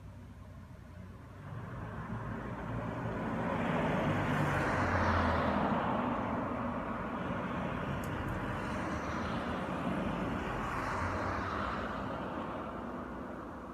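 Road traffic passing by, its tyre noise swelling to a peak about five seconds in and fading near the end.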